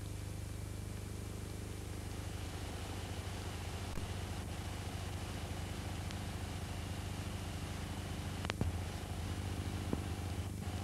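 Steady low hum with hiss under it, the background noise of an old film soundtrack. A sharp click comes late on, with a couple of fainter ticks before it.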